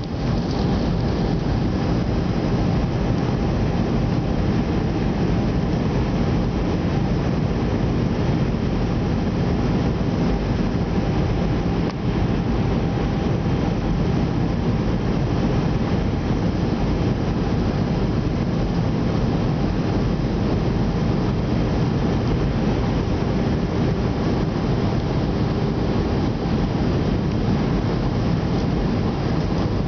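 Steady cabin noise inside a jet airliner on descent: an even rush of engine and airflow noise with faint steady hums underneath.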